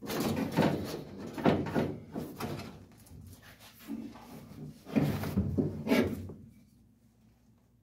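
Hands and tools working at a truck's dashboard: a run of knocks, clunks and scraping, with several loud strokes, that stops about six and a half seconds in.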